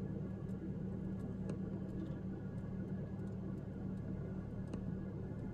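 Steady low hum of a Chevrolet's engine and road noise heard from inside the cabin while driving slowly, with a few faint clicks.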